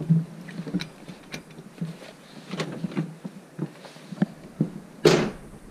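Footsteps and light knocks on the old wooden porch boards and floor of a cabin as its door is opened and someone steps inside. About five seconds in there is a short, loud rush of noise.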